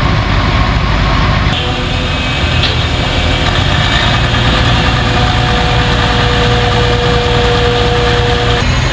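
Heavy diesel engine of construction machinery running steadily. The sound changes suddenly about a second and a half in, and a steady whine joins in during the second half.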